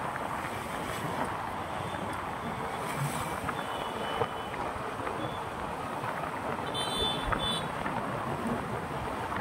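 Steady road and wind noise from a vehicle driving along a highway. Brief high-pitched tones come about three and a half seconds in and again about seven seconds in.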